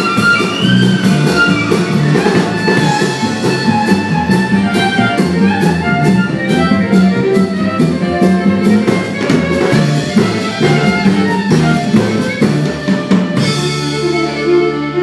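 Live band music: an instrumental passage with fiddle over a steady drum beat. Near the end the beat stops and a chord is held out.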